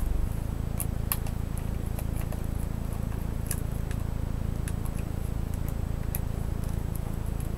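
A few light, scattered clicks of a small screwdriver driving the keyboard screws into the metal underside of a laptop, over a steady low hum.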